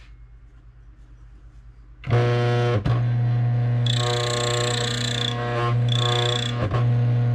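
Mahlkönig E65 grind-by-weight coffee grinder's motor switches on about two seconds in and runs with a steady low hum. Three times a higher-pitched scraping comes and goes over it as the burrs lightly rub, the scuffing touch point used to set the grinder's calibration zero.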